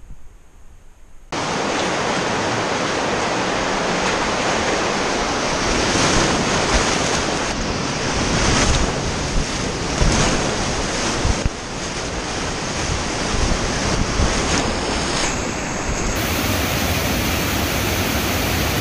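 Loud rushing whitewater of the North Fork of the South Platte River, starting abruptly about a second in as a kayak runs a rapid, with water crashing and splashing close around the boat. Near the end it becomes the steady rush of the rapid.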